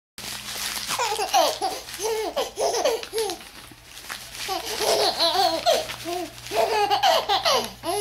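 A five-month-old baby girl laughing in quick, repeated bursts, in two long bouts with a short pause near the middle, with paper crinkling alongside.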